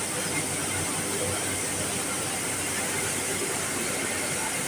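A machine running steadily, with a loud, even hiss over a low hum.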